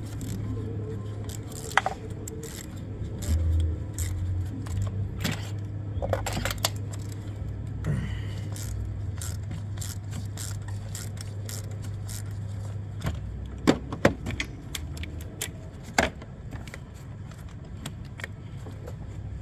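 Metal hand tools clinking, knocking and scraping during spark plug and ignition coil work on a car engine, in irregular sharp clicks with a few louder knocks near the end, over a steady low hum.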